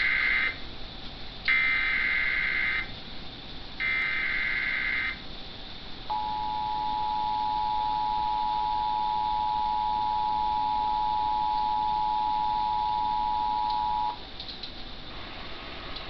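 Emergency Alert System test over a TV speaker. First come the buzzy digital SAME header bursts: the tail of one, then two more full ones, each lasting about a second with short gaps. About six seconds in, the steady two-tone EAS attention signal starts, holds for about eight seconds and cuts off abruptly.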